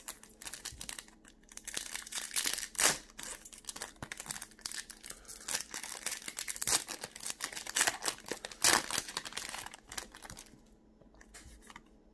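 Foil Pokémon card booster pack being torn open and crinkled by hand: a dense crackling rustle with a few sharper, louder rips, dying down about ten seconds in.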